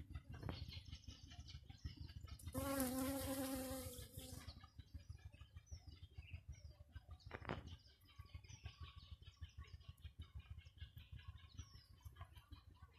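Honeybee buzzing close by as it forages among the flowers. A goat gives one long bleat about three seconds in, the loudest sound. A sharp click comes about seven and a half seconds in, with faint bird chirps.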